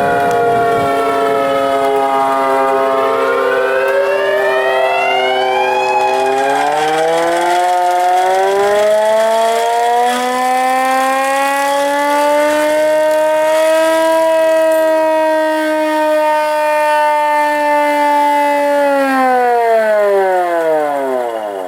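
Several outdoor tornado warning sirens sounding at once, their steady wailing tones overlapping at different pitches. One climbs in pitch a few seconds in. Near the end all of them wind down together, falling in pitch as they shut off.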